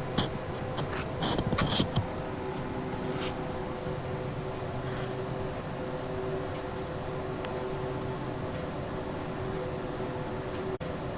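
Cricket chirping steadily, a high pulsing trill with about one and a half louder chirps a second, over a faint steady hum. A few sharp clicks come in the first two seconds.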